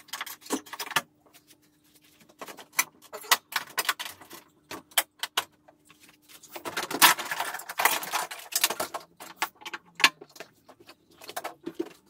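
Knocking, scraping and rattling of a washing machine's drum and plastic outer tub being worked loose and pulled out of the cabinet. There are scattered clicks at first and a denser, louder run of clattering a little past halfway.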